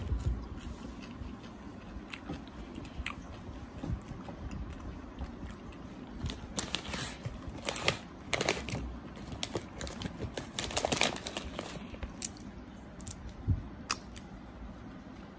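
Plastic wrapper of an opened sharing-size bag of Mint M&M's crinkling as it is handled and tipped, in irregular crackles that come thickest in two bursts in the middle.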